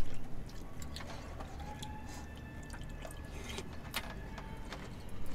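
Table-side eating sounds: chopsticks and a spoon clicking against a stew pot and bowls, with soft liquid sounds as gamjatang stew is scooped. The clicks are irregular, with a louder cluster at the very start.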